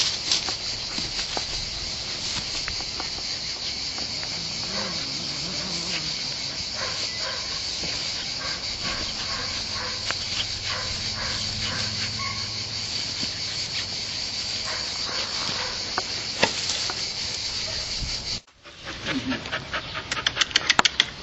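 A steady high-pitched insect chorus, chirring without a break, with faint scattered ticks over it. Near the end the sound cuts off abruptly, and a Doberman puppy pants rapidly.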